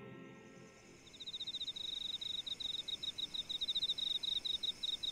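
A cricket chirping in fast, high-pitched trills, repeating steadily, coming in about a second in as background music fades out: a night-time ambience.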